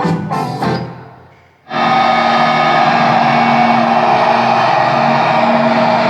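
Honda Gold Wing GL1800's built-in stereo playing music through its speakers. A plucked-guitar track fades out about a second in, and after a brief gap a louder, denser track starts as the source is switched from auxiliary to CD, which routes it through the bike's rear amplifier.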